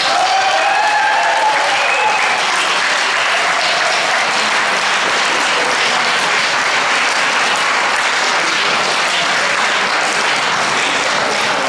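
Audience applauding steadily, a dense even clapping that starts the moment the dance music stops.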